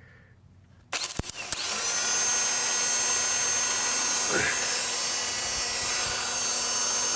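A few sharp clicks as the battery cable goes on, then the starter motor of a 1997 Acura CL spinning with a loud, steady whir. It runs by itself with no key in the ignition, and only stops when the battery is disconnected or the starter is knocked.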